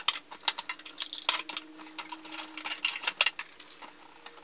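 Plastic doll-size toy kitchen pieces (bowls, trays and the like) clicking and clattering as they are handled and set into their places, in quick irregular taps.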